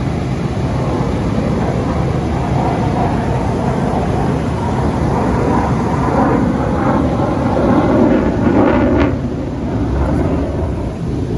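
Pratt & Whitney engines of a multi-engine aircraft running after start-up, a loud steady rumble that swells about eight to nine seconds in and then eases back.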